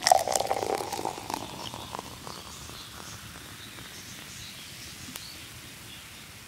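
The close of an intro sequence's music and sound effects: a loud, crackly sound that falls in pitch right at the start and dies away over about two seconds into a faint steady hiss.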